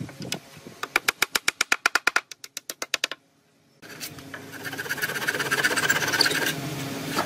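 Rapid, evenly spaced taps of a wooden block mallet driving a wooden dowel peg into a pine board, about nine a second for two seconds. After a short gap, a handsaw rasps steadily as it cuts the protruding dowel flush with the board's surface.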